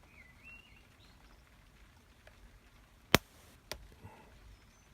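Two sharp clicks about half a second apart, the first much louder, from hook pick and tension wrench work on a Ruko five-pin euro cylinder. Faint bird chirps in the background.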